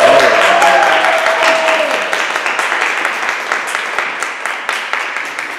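Audience applauding, breaking out suddenly and slowly dying down. One voice calls out a long held cheer over the clapping for about the first two seconds.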